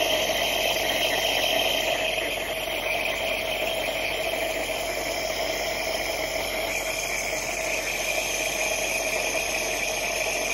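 Electric compressor nebulizer running with a steady mechanical hum, feeding medicated mist through tubing to a puppy's face mask.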